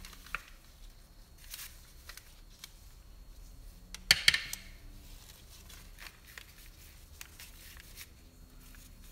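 Quiet kitchen handling: soft rustles of parchment paper and dough being laid over and patted into place. About four seconds in, one short louder knock and rustle as a wooden rolling pin is set down on the counter.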